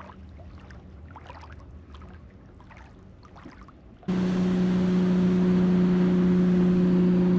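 Faint water and hull noise for about four seconds, then a sudden switch to a loud, steady motor drone with a low hum.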